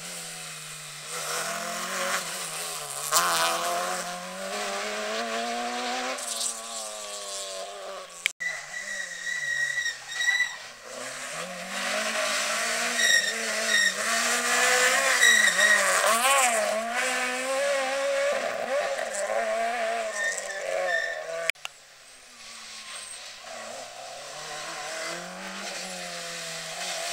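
Rally cars driving past one after another, three in turn. Each engine revs hard and drops through gear changes, its pitch rising and falling repeatedly, with short high squeals in the middle passage.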